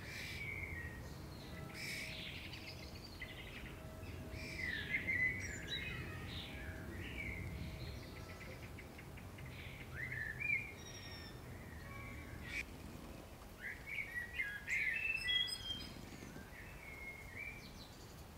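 Several songbirds singing and chirping, their short calls and whistled notes overlapping, with a busier flurry near the middle and again near the end. A low steady rumble runs beneath them.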